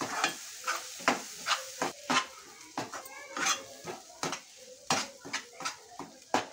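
A spoon scraping and knocking against a kadhai, two or three irregular strokes a second, as tomato-onion masala paste is stir-fried in oil on low heat, with a faint sizzle underneath.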